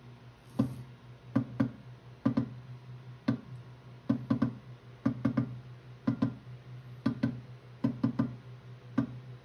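Clay extruder of a ceramic 3D printer running with a steady low motor hum while clay is forced through the feed tube, broken by sharp pops in clusters of one to three about once a second, like the puffing 'puck-puck' that air trapped in the clay makes.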